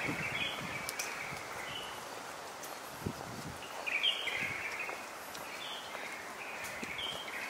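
A songbird singing in several short phrases of stepped chirping notes, with pauses between them, over a steady hiss of street ambience.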